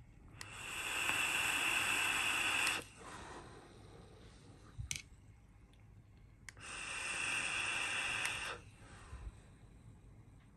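A vaper's long draw through a Hellvape Fat Rabbit RTA fired at about 90 watts, air hissing through its open airflow for about two and a half seconds, followed a few seconds later by a long hissing exhale of vapor. A couple of sharp clicks fall between the two.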